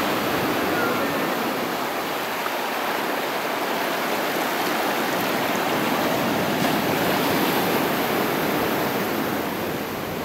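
Small waves breaking offshore and surf washing up over a sandy beach, a steady rushing hiss.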